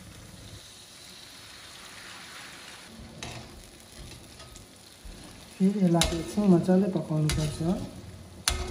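Hot oil and spices in an iron karahi sizzle softly as a bowl of liquid is poured in. From about halfway, a steel spatula stirs and scrapes the pan, louder, with a few sharp clanks against the metal.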